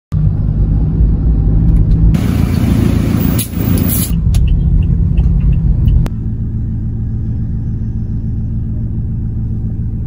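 Car on the move, heard from inside the cabin: a steady low rumble of engine and road noise. A hiss joins it for about two seconds a couple of seconds in, and the rumble drops a little about six seconds in.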